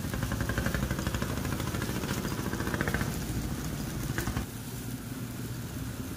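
A motor vehicle engine running close by, a low rapid rumble that drops away about four and a half seconds in.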